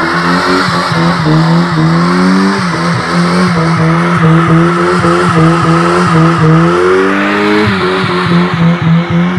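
Car doing a burnout: its engine is held at high revs and stutters rhythmically against the rev limiter while the spinning rear tyres squeal.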